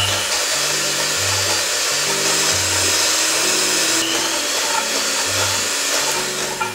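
Cuisinart electric hand mixer running steadily, its beaters whisking heavy cream in a stainless steel bowl toward soft peaks; the motor cuts off near the end. Background music with a bass line plays underneath.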